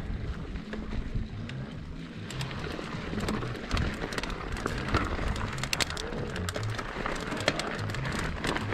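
Music with a bass line that moves in blocky steps, over the noise and rattle of a mountain bike rolling down a rocky singletrack trail, with many sharp clicks and knocks from about two seconds in.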